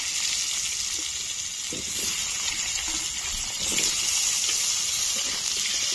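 Cut potatoes sizzling steadily in hot oil.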